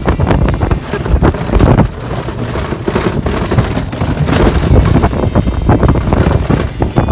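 Loud, uneven wind buffeting the microphone of a phone held in a moving golf cart, mixed with the cart's running and rattle over rough dirt and grass.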